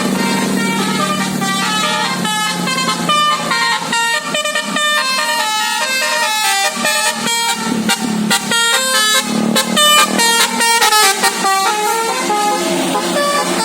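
Bus's 'basuri' telolet musical air horn playing a quick melody: clear horn notes stepping up and down in pitch several times a second, with a few short sharp blasts near the end.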